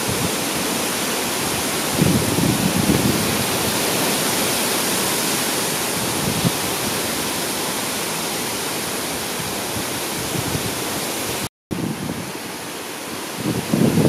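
A forest fire burning, heard as a steady rushing roar with low rumbling swells about 2 seconds in and again near the end. The sound drops out for a split second shortly before the end.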